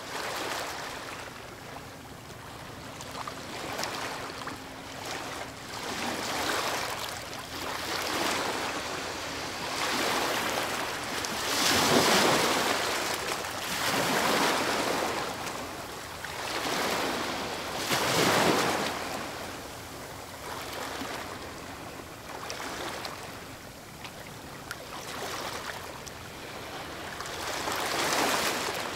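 Sea waves washing in on the shore, surging and ebbing every couple of seconds.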